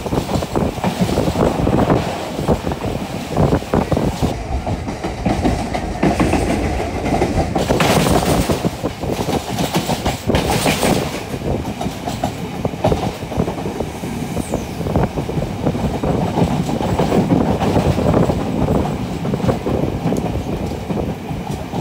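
Passenger train running along the track, heard from inside a coach: the wheels keep up a continual clatter over the rails under a heavy rumbling noise.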